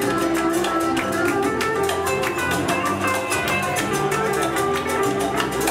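Live band playing Mexican son music: strummed guitars and drums keep a quick, even rhythm under sustained melody notes.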